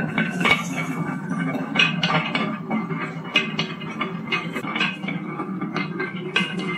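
Marbles rolling through the snaking grooves of a carved wooden marble track: a steady rolling rumble with frequent sharp knocks as they strike the walls of the bends.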